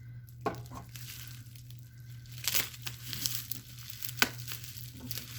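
Plastic shrink wrap crinkling and tearing as it is pulled off a cardboard box by hand, in irregular crackles with a few sharper snaps.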